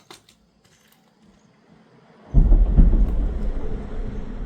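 A sudden loud low rumble starts a little over two seconds in, peaks, then eases slowly while staying strong.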